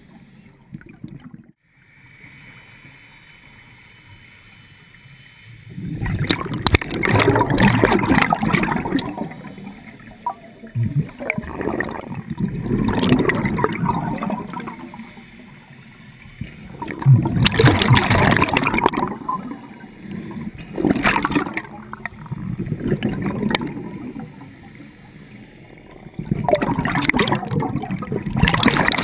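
Scuba divers' exhaled air bubbling out of their regulators, heard underwater: bursts of bubbles every four to five seconds, each lasting two or three seconds, with a quieter hiss of water between.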